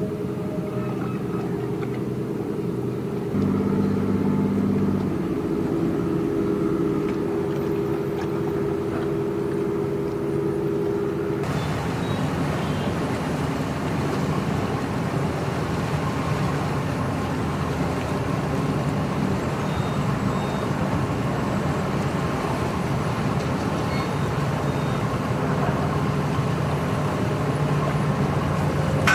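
Engines running steadily: a low, droning hum with steady low tones. It grows louder for a couple of seconds about three seconds in, and about eleven seconds in it turns abruptly into a rougher, noisier rumble.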